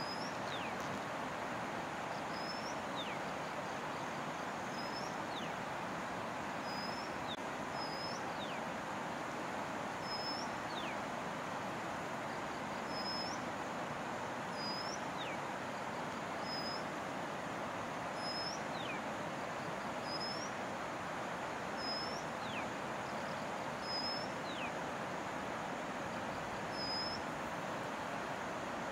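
Steady rush of a shallow river running over rocks. Over it, a bird repeats a short, high, upward-hooked call about every two seconds, each followed by a thin falling whistle.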